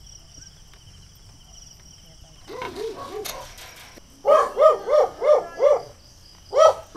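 Crickets chirping steadily, then a dog barking in quick runs of short barks from about two and a half seconds in. The barks get louder in the second half.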